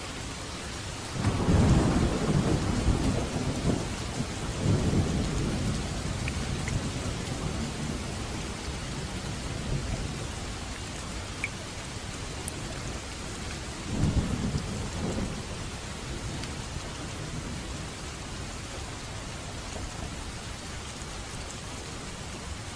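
Steady heavy rain with two rolls of thunder: a loud rumble starting about a second in that rolls on for several seconds, and a shorter one about fourteen seconds in.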